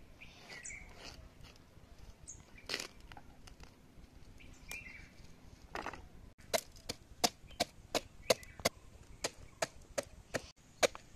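A cabbage being chopped with the rim of a steel tumbler on a plastic tray: soft handling at first, then from about halfway a steady run of sharp chopping knocks, two to three a second.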